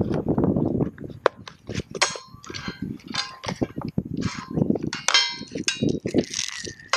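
Hand-handling noises as a weather meter, its cardboard box and a black plastic vane mount are picked up and set down on a metal table: a string of clicks, knocks and rustles, with a couple of short ringing metallic clinks.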